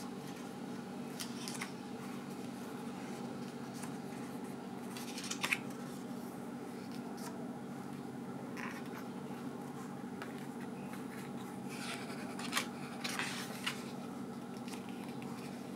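Pages of a thread-bound art-paper photo book being turned by hand: a few brief paper rustles and flicks, the loudest about five seconds in and a cluster near the end, over a steady low hum.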